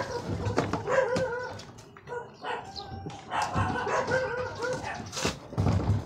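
A dog barking in runs of short, repeated yaps, with scattered knocks and clatter as the plastic washing machine cabinet is tipped and moved.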